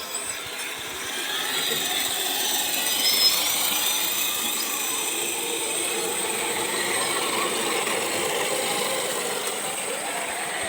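Electric drive of an RC rock crawler, a Revolver motor run by a Castle SW4 controller, whining steadily as the truck drives. Faint high-pitched whines rise and fall with the throttle.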